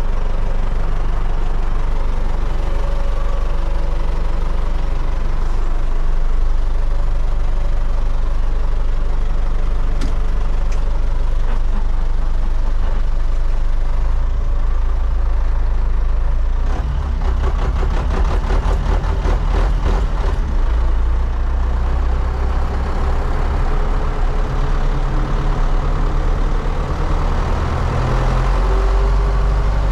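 MTZ-80 tractor's D-243 four-cylinder diesel running steadily, with a rapid clatter for a few seconds around the middle and the engine note rising near the end.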